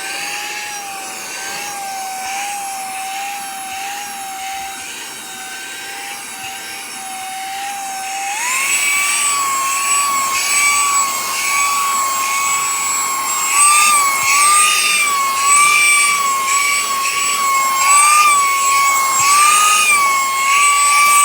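Saker HL122 3-in-1 handheld cordless vacuum running with its crevice tool on car carpet: a steady motor whine whose pitch wavers as the nozzle works the carpet. About eight seconds in, the whine steps up in pitch and gets louder.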